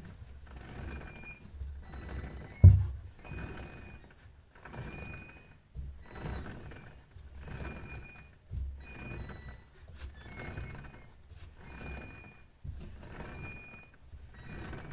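Intermittent whistling squeak from the underside of a Toyota Land Cruiser Prado 120 as a wheel is spun forward by hand: a short, high, metal-on-metal chirp about once a second, as though something rotating catches at one point on each turn. There is one loud thump about three seconds in. The owner does not know the cause and has ruled out the wheels, hubs, brake pads and U-joints.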